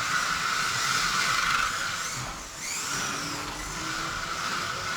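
Small electric motors of Kyosho Mini-Z RC cars whining as they drive, over a steady hiss, with the whine gliding up and down in pitch a couple of seconds in as the cars change speed.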